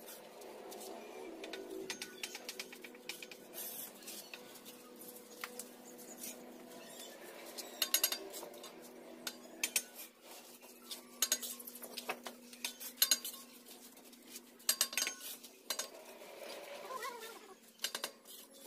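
Steel bricklaying trowels scraping mortar and tapping red bricks into place: irregular metallic clinks and scrapes, a few of them ringing sharply.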